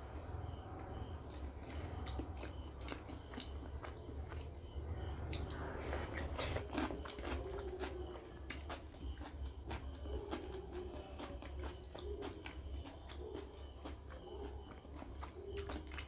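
Close-miked mouth sounds of a person eating fatty pork curry and rice: chewing and biting with many short wet smacking clicks, busiest in the middle.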